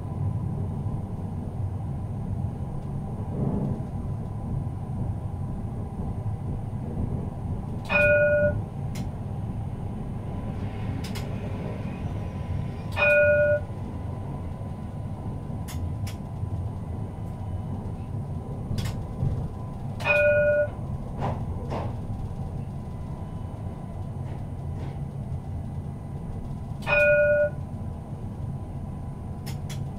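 Tram running with a steady low rumble heard from the driver's cab. Its warning gong sounds four times, one short ringing chime every six to seven seconds.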